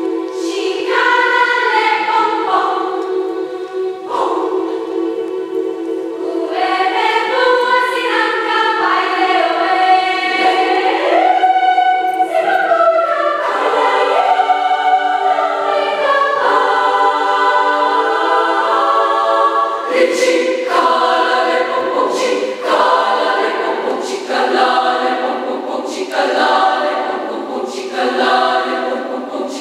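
Large girls' youth choir of over a hundred voices singing in several parts over a held low drone, the upper voices gliding and moving above it. About two-thirds of the way through, the singing turns rhythmic, with sharp accents roughly once a second.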